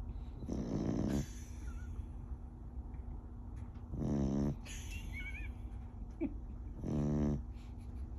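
Sleeping beagle snoring: three pitched snores, each about half a second long, roughly three seconds apart.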